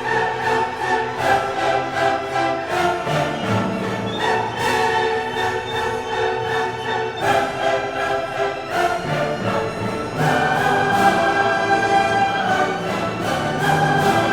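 Orchestral background music with strings and a steady rhythmic pulse.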